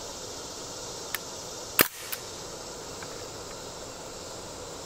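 CO2-powered .177 BB gun firing once, a single sharp pop about two seconds in, with a fainter click shortly before and after it, over a steady outdoor background hiss.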